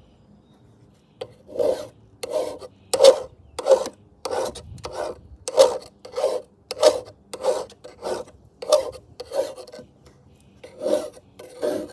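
A hand file rasping along the bevelled cutting edge of a Homelite electric lawnmower's steel blade, sharpening it. There are regular strokes about one and a half a second, starting about a second and a half in, with a brief pause about ten seconds in.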